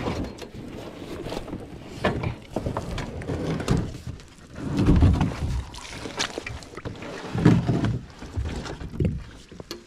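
Footsteps in neoprene boots squelching through soft creek-bank mud and then wading into shallow water beside a plastic kayak, with irregular scuffs and knocks and two louder thuds, about five and seven seconds in.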